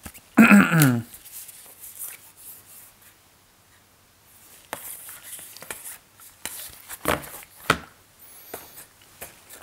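Thick cardboard game tiles being lifted from a box and handled, with light rustling and a few sharp clicks and knocks as they slide against each other and are set down. A brief vocal sound about half a second in.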